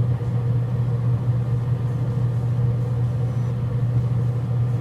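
Steady, even hum of a Yoder YS640s pellet smoker running, its combustion fan turning at a fixed low pitch.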